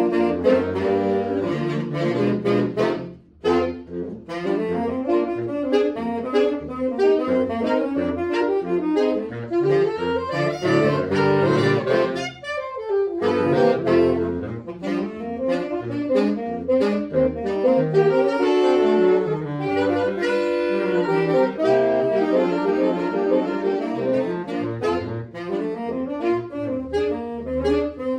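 Saxophone quartet playing together, several saxophone parts sounding at once, with a brief break about three seconds in.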